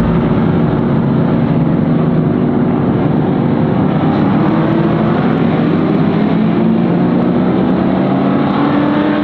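A pack of vintage muscle-car race cars running together at speed, their engines loud and steady, with the pitch rising slowly in the second half as they accelerate.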